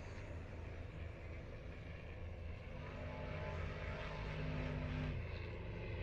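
Distant engine droning steadily over a low rumble, with a clearer pitched hum for about two seconds in the middle.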